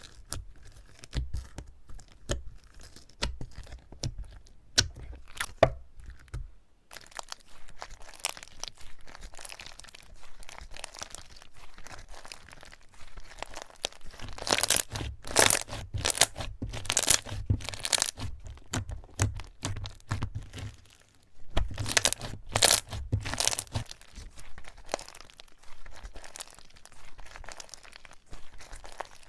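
Slime being squeezed and pressed by hand, giving irregular crackles, pops and crunchy tearing sounds. The crackling thickens into louder runs about halfway through and again later.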